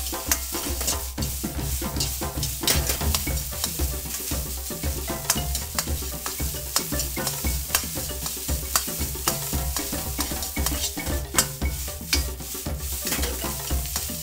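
Metal ladle stirring and scraping rice and egg around a hot frying pan, with many quick clinks and scrapes of metal on metal over the sizzle of the rice frying.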